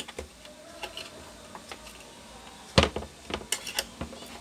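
Plastic clicks and knocks from the bottom casing of an induction cooker being handled and pried at along its edge: a few light clicks, one sharper knock about three seconds in, then a quick run of small clicks.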